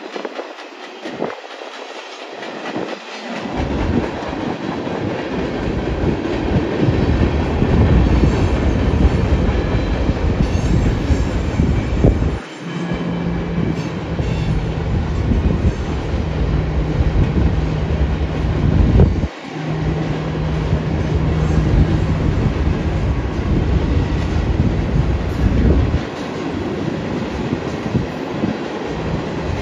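Union Pacific train passing close by: a steady rumble of wheels on rail with a clickety-clack, rising over the first few seconds. A steady low hum runs through the middle for several seconds.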